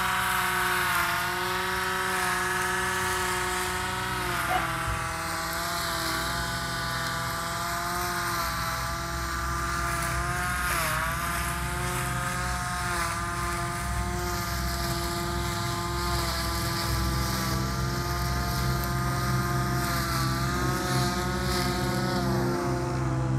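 Small cordless 12-volt electric grass trimmer running while cutting lawn grass: a steady motor whine that dips briefly in pitch a few times as the head cuts into the grass.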